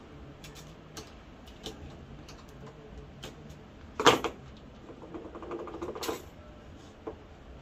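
Small clicks and knocks of a metal D-ring hanging hook and a screwdriver being handled against a wooden picture frame while the hook is lined up for fixing, with one sharp clack about four seconds in and a short rattle just before six seconds.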